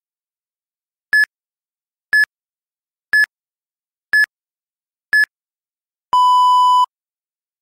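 Electronic timer beeps from an interval-training audio track: five short, higher beeps one second apart, then one longer, lower beep, a countdown marking the change between a one-minute run and a one-minute recovery.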